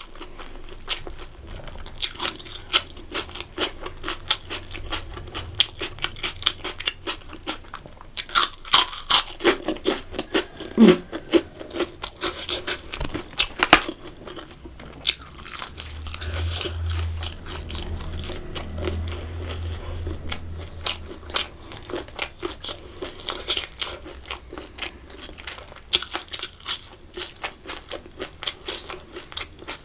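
A person chewing and crunching food close to the microphone, with a steady run of quick, wet mouth clicks and crunches.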